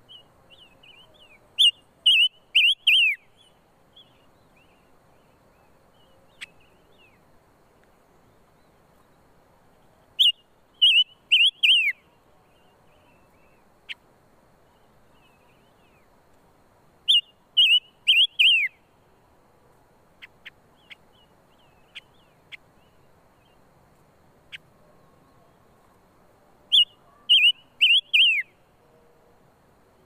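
Silver-eared mesia singing: four loud phrases of several quick whistled notes, each note bending down in pitch, repeated every seven to ten seconds, with soft short call notes in between.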